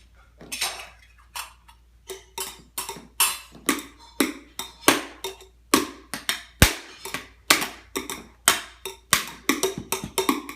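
A run of sharp taps, irregularly spaced at about two to three a second, each ringing briefly.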